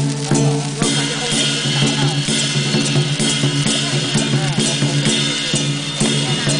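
Temple-fair percussion: drums beaten in a steady, driving rhythm with cymbals clashing. Over it, fireworks hiss and crackle, growing louder about a second in.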